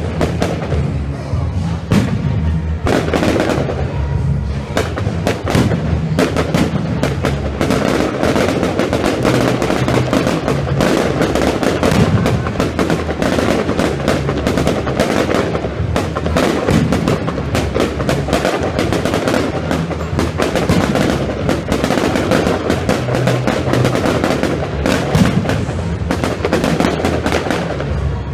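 A fireworks display with shells bursting in rapid, dense succession, many bangs and crackles overlapping, and music playing underneath.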